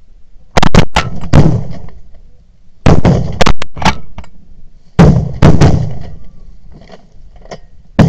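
Shotgun blasts in three volleys about two seconds apart. Each volley has two loud shots about half a second apart, with fainter shots among them, and a few fainter shots come near the end.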